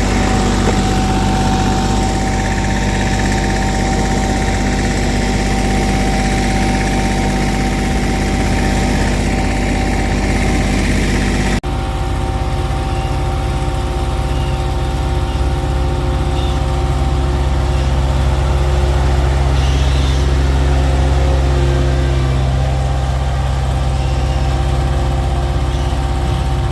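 Engines of asphalt paving machinery running steadily. The sound breaks off sharply about twelve seconds in and picks up again with a deeper, heavier engine note.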